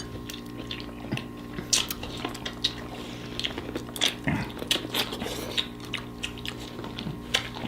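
Close-up eating sounds from a seafood boil: chewing and biting, with many scattered sharp clicks and taps.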